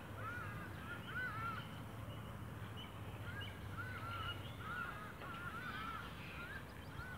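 Bulldog puppies whimpering and squealing in short, high, arching whines, about a dozen of them in irregular clusters, during play.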